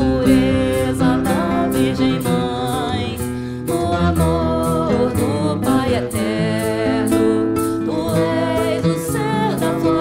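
A Portuguese devotional hymn sung to acoustic guitar, with a shaker keeping a steady beat of about two strokes a second.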